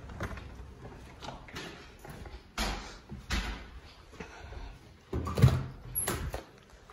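A handful of short knocks and bumps, the loudest about five and a half seconds in.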